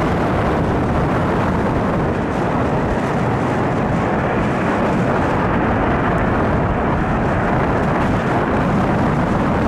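Loud, steady rumbling jet noise from an Antonov An-124's four Lotarev D-18T turbofan engines as it lands.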